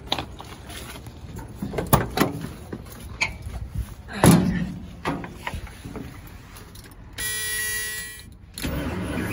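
Car door unlatched and opened with sharp clicks, then a heavy thud about four seconds in as the driver gets in. About seven seconds in, the dashboard warning buzzer sounds a steady tone for about a second and a half, and right after it the 1978 Plymouth Volare's starter starts cranking the long-dormant engine, a little squeaky.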